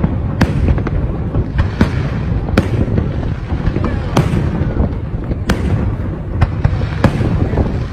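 Fireworks display: aerial shells bursting, with sharp bangs about once a second over a continuous low rumble of further explosions.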